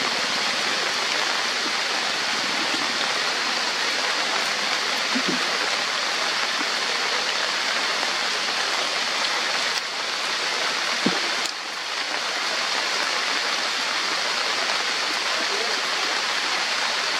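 Heavy rain falling steadily on forest foliage, a dense, even hiss.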